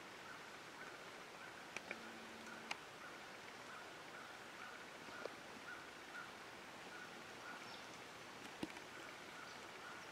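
Quiet outdoor ambience: a faint steady hiss with a few scattered sharp little clicks, the strongest about a quarter of the way in and again near the end.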